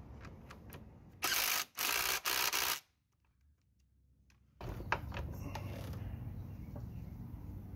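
Cordless impact driver hammering in three short bursts as it runs in the front axle of a motorcycle wheel, followed by a few light metallic clicks of the axle and parts being handled.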